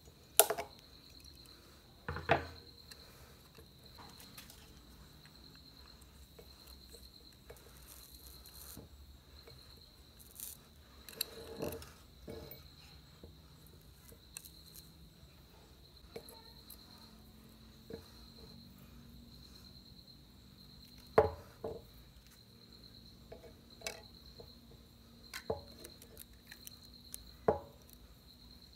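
Scattered sharp clicks and knocks of metal tools and a metal speaker-driver housing being handled on a wooden table, about half a dozen in all. A high, steady pulsing trill runs underneath throughout.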